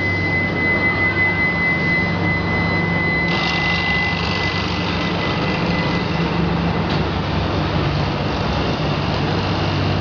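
Steady industrial drone of a steel melting furnace at work: a low hum with a thin high whine that fades about six seconds in, joined about three seconds in by a harsher hiss.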